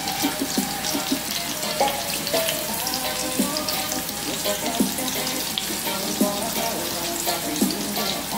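Diced tomato, scallion and garlic sizzling in oil in a wok, a steady hiss, with music playing underneath.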